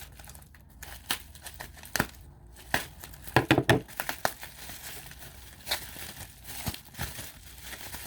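Packaging around a crystal being unwrapped by hand: irregular crinkling and tearing, with sharp crackles, a dense cluster about halfway through.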